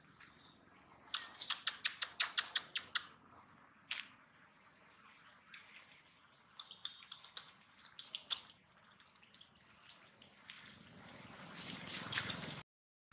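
Steady high-pitched drone of insects (crickets) in the background. About a second in comes a quick run of about a dozen sharp clicks, a few more follow, and the sound cuts off abruptly near the end.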